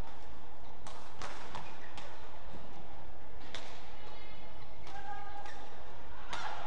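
Badminton rally: a racket sharply striking the shuttlecock every second or so, with short squeaks of shoes on the court floor in the middle.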